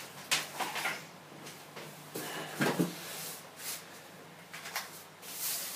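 Packaging and metal parts of a boxed bike maintenance stand being handled: irregular rustling and scraping with a few light knocks.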